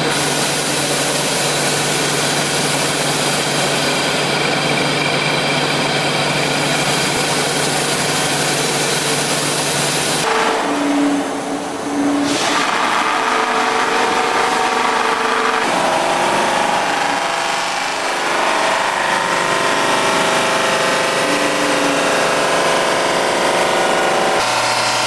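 CNC polishing machine at work, its spinning buffing wheels pressed against metal parts: a steady motor hum under a loud hiss of wheel on metal. The sound changes abruptly a few times, with a short drop in the hiss about 10 to 12 seconds in.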